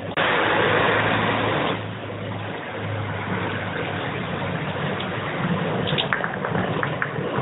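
Steady rushing noise of motorway traffic passing below, much louder for about a second and a half at the start, then settling to a constant hum. A few short high clicks near the end.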